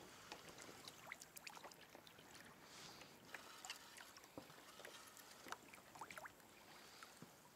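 Faint lapping and trickling of water against a kayak's hull, with scattered small drips and plops.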